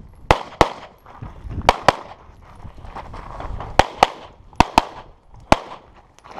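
Pistol shots fired in quick pairs, about nine sharp cracks over six seconds, each with a short echo trailing off.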